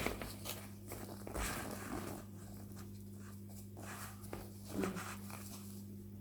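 Handbag packing being handled: scattered rustling, scraping and clicking, busiest in the first two seconds and again about five seconds in, over a steady low electrical hum.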